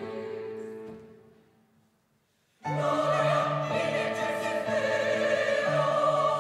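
Classical background music. A choral passage fades out over the first two seconds, there is a moment of silence, then orchestral music with operatic singing comes in abruptly.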